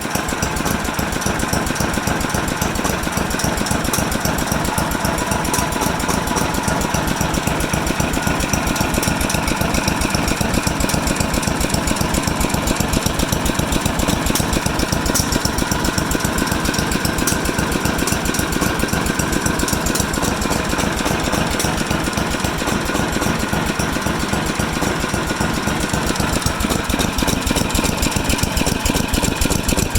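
Small Tecumseh engine running steadily at idle on a freshly rebuilt OEM carburetor, a rapid, even chugging with no stumbles.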